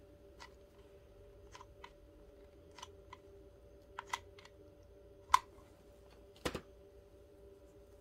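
Hot glue gun in use: scattered light clicks and ticks as its trigger is squeezed, with one sharper click about five seconds in and a duller knock about a second later.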